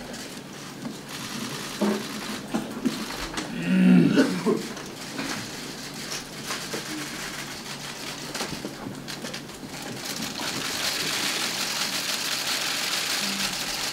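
Many press cameras' shutters clicking in rapid bursts, growing denser near the end. A short voice is heard about four seconds in.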